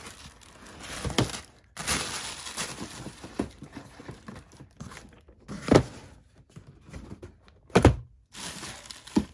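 Cardboard product boxes being lifted out of a shipping carton and set down on one another: a few separate knocks and thuds, the loudest about halfway through and again near the end, with cardboard sliding and scraping in between.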